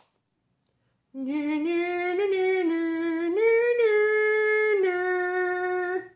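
A man singing a wordless, high held 'ooh', starting about a second in: a few long notes that step up in the middle and settle back down.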